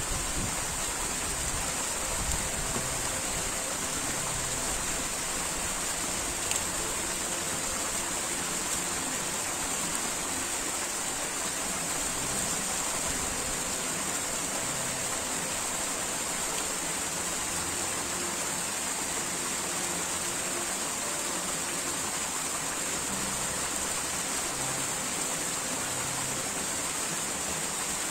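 Small waterfall pouring steadily down a narrow rock gorge, a constant rushing splash of water.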